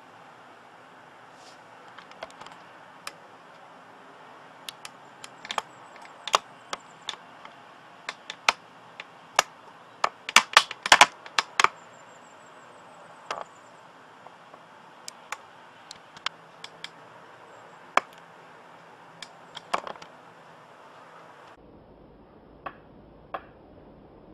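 Irregular sharp clicks and taps over a steady hiss, densest about halfway through: handling noise from fingers on the body of a handheld Panasonic SDR-S26 camcorder. Near the end the hiss gives way to a faint low hum.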